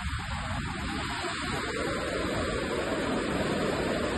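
Surf washing up a beach, a steady rushing hiss of breaking and spreading waves.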